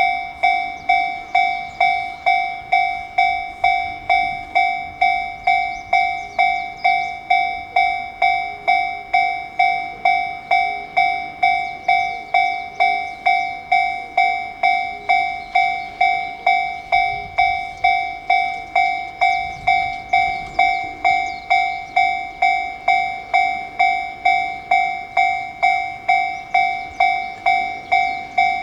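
Japanese railway level-crossing alarm ringing its repeated two-tone clang, a little under two strikes a second, each strike dying away before the next. It is warning of an approaching train.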